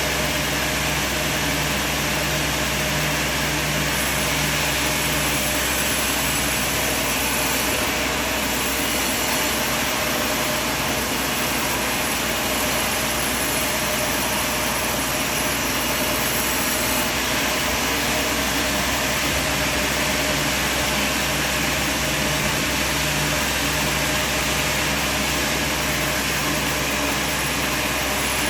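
Sawmill machine running steadily, a constant mechanical drone and hiss with a few faint steady tones and no change in level.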